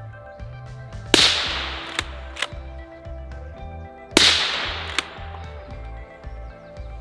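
Two rifle shots from a Blaser R8 with a .223 barrel, about three seconds apart, fired as part of breaking in the new barrel. Each is a sharp crack with a decaying echo, and fainter clicks come between them. Background music with a low, steady beat plays underneath.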